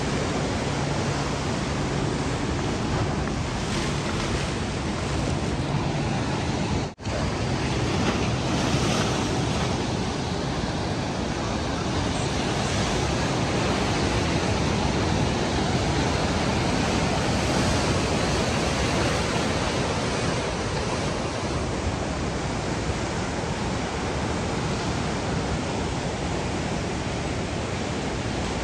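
Ocean surf breaking and washing onto a beach: a steady, unbroken rush of waves. The sound drops out for a split second about seven seconds in.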